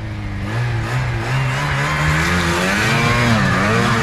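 Snowmobile engine revving as the sled comes up close. The engine's pitch rises and falls, and it grows louder towards about three seconds in.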